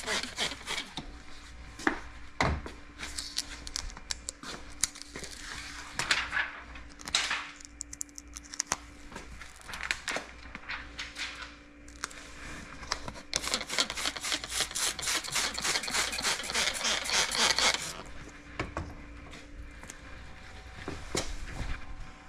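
Hands rubbing, wiping and handling paint protection film on a car door sill, with scattered clicks and knocks. About two-thirds of the way through comes a few seconds of dense, rapid crackling hiss.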